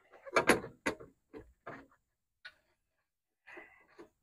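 Light clicks and ticks of small plastic and metal parts being handled, wire connectors being fitted for an electric cooling fan, with a brief louder rustle in the first second and a small cluster of clicks near the end. No fan is running yet.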